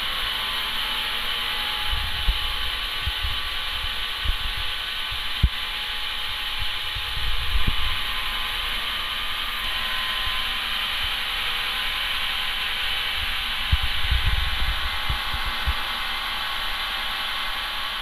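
Band sawmill running steadily between cuts, the blade spinning free with a constant hiss and whine, with a few dull knocks and thuds as the carriage and timber are handled.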